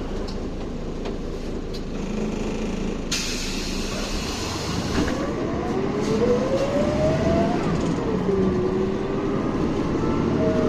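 City bus heard from inside the cabin while under way: a steady running rumble of engine and road, with a whine that rises in pitch about halfway through as the bus picks up speed, then drops and holds lower.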